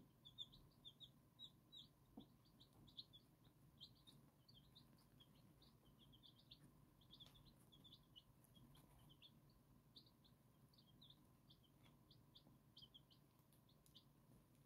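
Silver Laced Wyandotte chicks peeping faintly: many short, high cheeps, several a second, busiest in the first couple of seconds.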